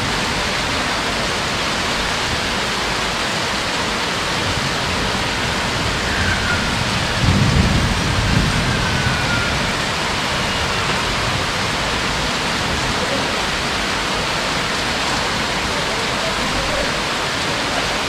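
Heavy rain falling steadily, with a low rumble of thunder rising and fading about seven seconds in.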